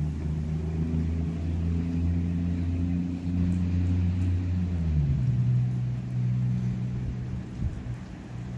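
A motor vehicle's engine running with a steady low hum, its note changing about five seconds in.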